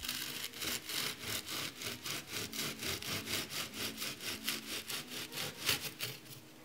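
Long knife sawing back and forth through a sheet of crisp baked puff pastry, about four scraping strokes a second, stopping near the end.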